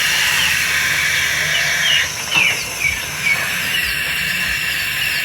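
A young owl's steady, hissing screech, with a few short, high, falling chirps over it in the middle.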